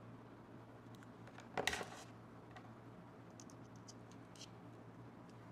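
Faint handling sounds as an Apple Watch's black band is worked off the watch: a short scrape about a second and a half in, then a few light clicks, over a faint low hum.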